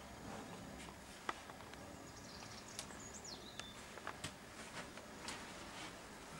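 Faint clicks and light taps as a motherboard is handled and set into a PC case. A faint high chirp falls in pitch about three seconds in.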